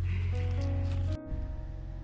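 Background music with held tones over a heavy bass, cutting off abruptly about a second in to a quieter passage.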